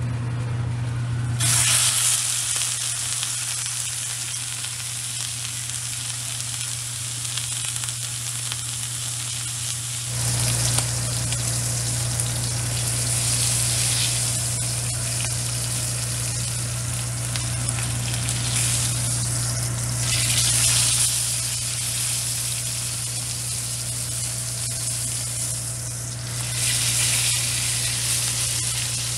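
Beef chuck roast searing in hot oil in a cast iron pot: loud sizzling that starts about a second and a half in as the meat goes into the pan, and flares up several times. A steady low hum runs underneath.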